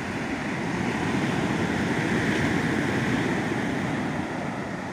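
Ocean surf breaking and washing up the beach: a steady rushing noise that swells a little in the middle and eases toward the end.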